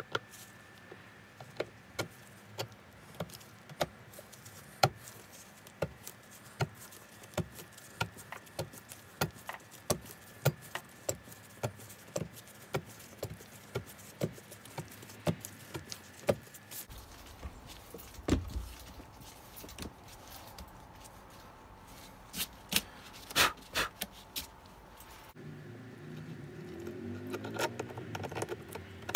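Small metal parts and hardware clicking and tapping as they are handled and fitted by hand: a run of sharp clicks about two a second, then a low knock and a cluster of louder clicks, with a busier rattle near the end.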